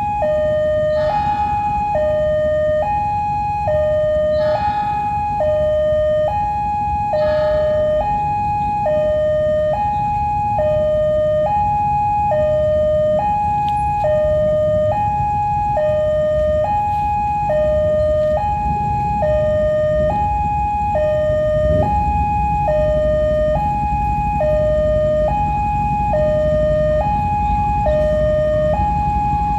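Railway level crossing warning alarm sounding a steady two-tone signal, alternating high and low about every three-quarters of a second, over a steady low rumble.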